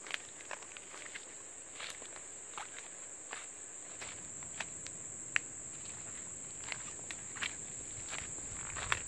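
Footsteps crunching over leaf litter and loose stones, an irregular step or scuff every half second or so, over a steady high-pitched drone of rainforest insects.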